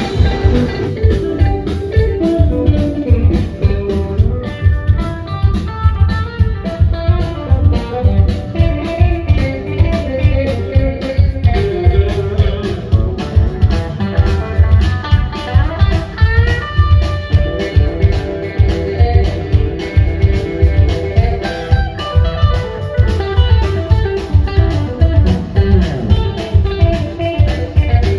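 Background music: a guitar-led track over a steady beat.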